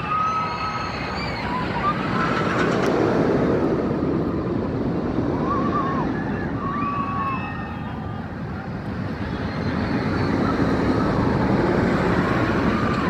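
X2 steel 4th Dimension roller coaster train rumbling along its track. The rumble swells twice as the train passes, with riders' short screams rising and falling over it.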